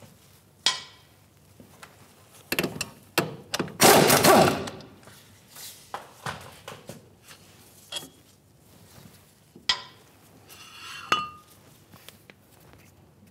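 Metal clanks, knocks and clinks as a rusty front brake caliper and its bracket are worked loose and handled. There is a burst of knocks about two and a half seconds in, then a loud, rough scraping rattle about four seconds in, and a few more knocks and a short rattle later.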